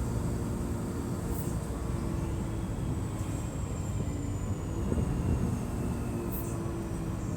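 Mercedes-Benz O500MDA articulated bus's Euro III diesel engine running steadily with a low drone, with a faint high whine that slowly falls in pitch during the second half.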